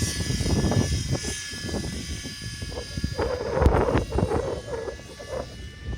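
GAUI NX4 radio-controlled helicopter flying, its rotor and drive giving a steady high whine, while strong wind buffets the microphone in gusts, the strongest gust coming a little past the middle.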